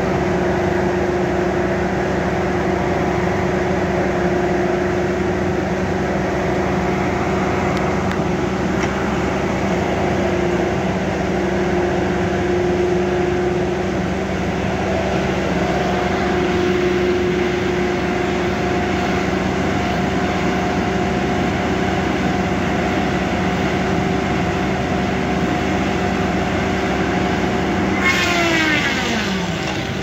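A wheeled feller buncher's diesel engine running steadily, with a constant hum and whine. Near the end a pitch drops sharply over about a second and a half as its saw head cuts into a pine trunk.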